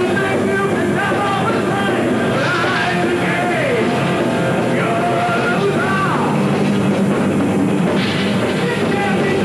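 Heavy metal band playing live: distorted electric guitar, bass guitar and drum kit, with notes sliding in pitch now and then.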